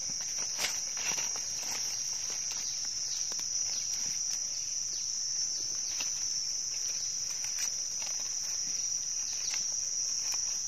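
Steady high-pitched drone of insects. Scattered crackles and scrapes of dry leaf litter and soil are heard as a knife digs and cuts at the ground.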